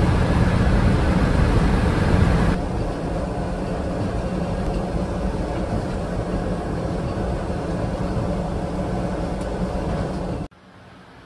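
Steady road and engine noise from inside a moving vehicle. It is louder for the first two and a half seconds, then eases slightly. It cuts off abruptly near the end to a faint steady hum.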